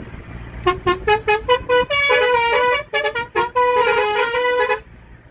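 Bus telolet musical horn (Basuri V3) playing a tune: a quick run of short hoots, then longer held notes stepping between pitches, stopping shortly before the end.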